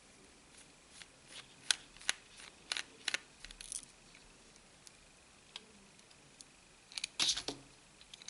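A small screwdriver clicking against a tiny screw and the phone's plastic as the screw is backed out of the mainboard: scattered sharp ticks, with a quick cluster of clicks near the end.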